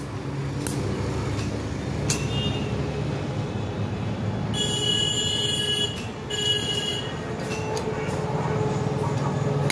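Hammer knocking on iron at a small anvil a few times, over a steady low engine hum. Around the middle, a high metallic ringing sounds twice, once for over a second and once briefly.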